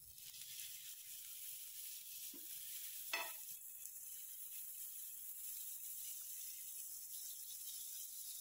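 Butter sizzling faintly and steadily as it melts on a hot flat griddle pan. There is a brief squeak about three seconds in.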